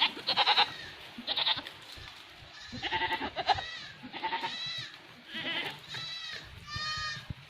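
Several goats bleating again and again, about seven or eight wavering calls of different pitches, some following close on one another.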